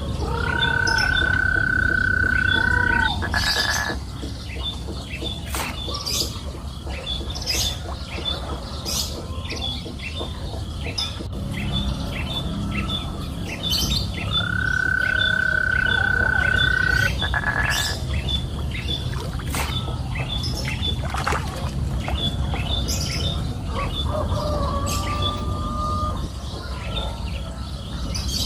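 Birds calling: a long, steady whistled note comes twice, about fourteen seconds apart, over a run of short high chirps repeating a few times a second, with scattered clicks.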